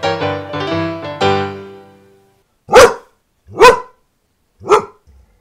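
Piano outro music fading out over the first two seconds, then a dog barking three times, each bark short and loud, about a second apart.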